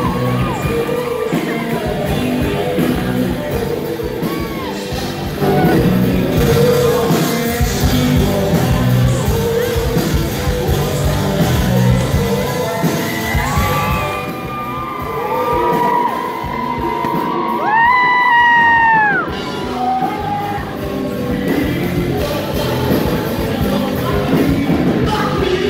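Live rock band, electric guitar and drums, playing with a vocalist singing into a microphone, heard from the audience in a large hall. Long held sung notes come a little past the middle.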